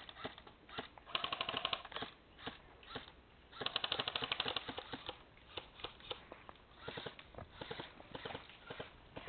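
Airsoft guns firing in rapid full-auto bursts, a fast rattle of clicks: one burst about a second in and a longer one about three and a half seconds in, with scattered single clicks between.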